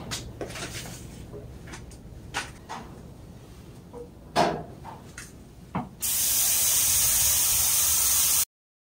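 Stainless steel dog-food bowls clinking and knocking as they are handled on a metal mesh wagon, the loudest knock about four seconds in. A steady, loud hiss starts abruptly about six seconds in and cuts off sharply about two and a half seconds later.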